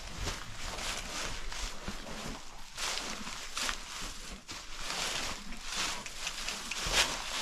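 Footsteps and a horse's hooves shuffling through dry corn-husk and straw bedding, in an irregular series of rustling steps.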